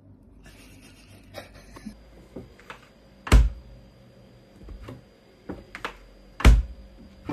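Light clicks and taps, then two loud thuds about three seconds apart, as a door is swung and knocks against its frame.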